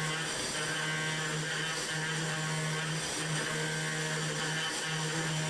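CNC milling machine's spindle and end mill cutting a metal mold core: steady high cutting noise with a low hum that drops out briefly every second or so as the tool works along its path.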